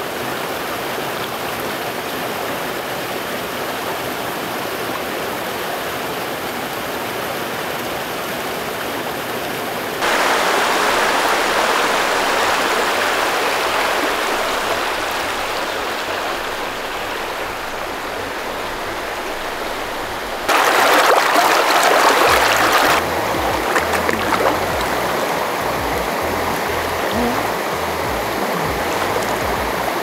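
Shallow mountain stream running over rocks: a steady rush of water. It gets louder about ten seconds in, and louder still for a couple of seconds past the middle.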